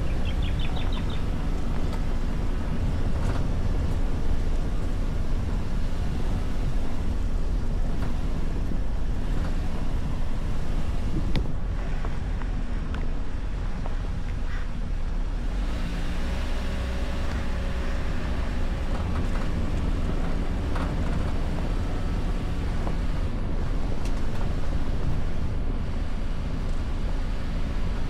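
Toyota Veloz driving on a rough off-road trail: a steady low rumble of engine and tyres, with wind noise on the microphone.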